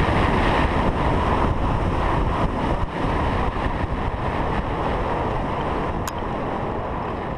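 Wind rushing over the microphone of a camera mounted on a hang glider in flight, a steady loud rush that slowly eases as the glider slows on its low final approach to landing.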